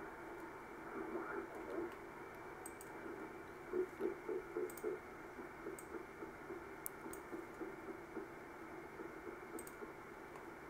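Shortwave receiver audio demodulated in upper sideband on the 20-metre amateur band: steady hiss cut off above about 2.4 kHz, with a faint, choppy voice coming and going, loudest about four seconds in. A few computer mouse clicks while tuning.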